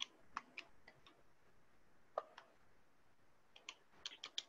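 Faint, sharp clicks at irregular spacing over near silence: a few at the start, two near the middle and a quick cluster near the end.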